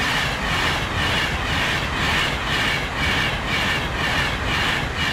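A passenger train passing close by at speed: a loud, steady rush with a pulsing beat about twice a second, dropping away at the end.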